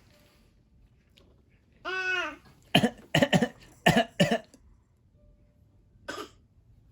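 Deliberate fake coughing. A short high-pitched vocal sound comes about two seconds in, then a quick run of about five coughs, and a single cough near the end.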